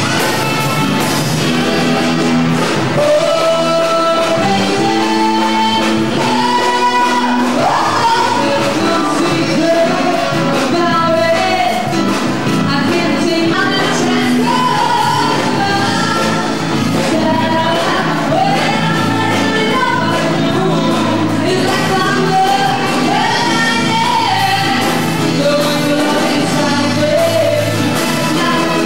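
A song with a singer, played as music for dancing.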